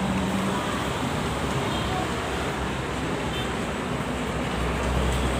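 Steady highway traffic noise from vehicles passing on a toll road, with no horn sounding. A deep engine drone from a heavy vehicle comes in near the end.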